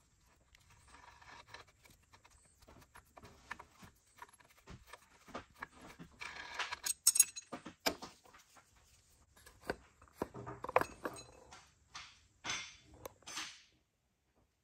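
Irregular metal clinks, taps and short scrapes of hand tools and threaded steel studs being handled at a bench vise, loudest about seven seconds in.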